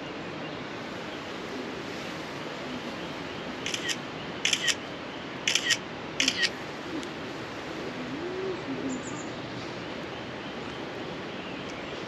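Steady rush of running water from a river. Four pairs of sharp clicks come a few seconds in.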